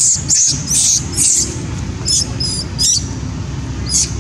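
An infant long-tailed macaque squealing in distress: short, very high-pitched squeaks about twice a second, thinning to a few separate squeaks in the second half, over a steady low background noise.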